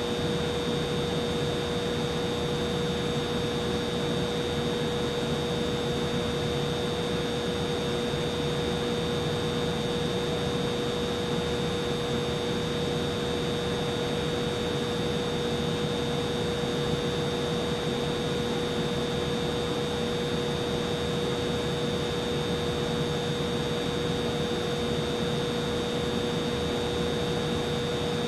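Humidifier running: a steady, even whir of air with a constant hum and a faint high whine, unchanging throughout.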